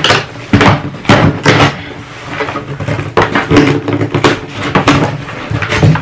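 Cardboard shipping box being opened: sharp scrapes and rips of tape and cardboard flaps in the first couple of seconds, then cardboard and plastic air-pillow packaging rustling as the contents are pulled out.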